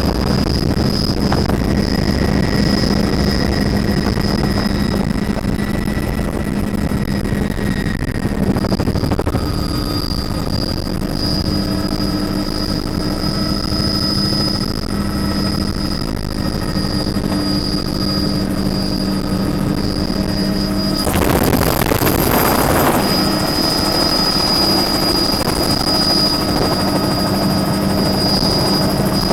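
Helicopter in flight: steady rotor and engine noise with a constant high whine. About three quarters of the way through there is a brief louder rush of noise.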